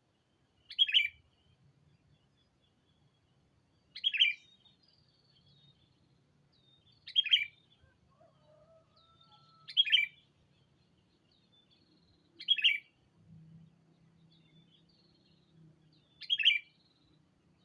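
Sooty-headed bulbul (kutilang) giving a short, loud call six times, about every three seconds, the challenge call a decoy bird uses to bring in rival bulbuls. Fainter, thinner bird whistles sound between the calls.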